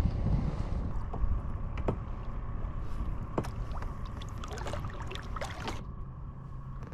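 Light clicks and knocks aboard a fishing kayak. Wind rumbles on the microphone at first and fades after about a second. A low steady hum comes in near the end.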